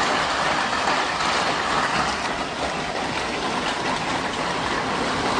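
Strong storm wind and heavy driving rain, a steady, even rushing noise.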